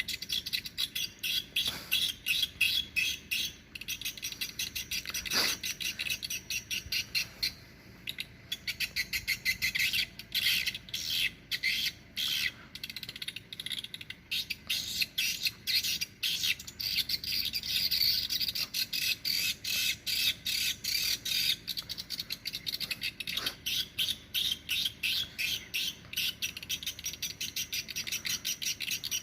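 Swiftlet calls played as a lure through a swiftlet house's sound system: a dense, unbroken stream of rapid, high-pitched chirps and twitters, with a few faint falling sweeps.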